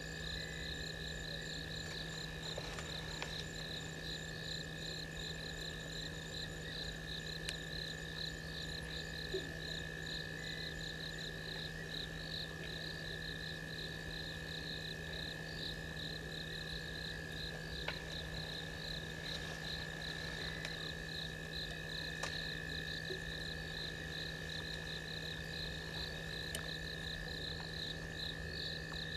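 Steady night chorus of insects and frogs: a high trill pulsing a few times a second over steady, unbroken whining tones, with a few faint ticks.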